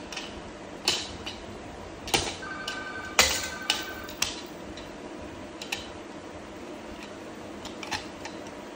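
Hard plastic baby toys clicking and knocking together as they are handled, in about eight sharp, irregular clicks. A faint steady electronic tone sounds for about a second and a half partway through.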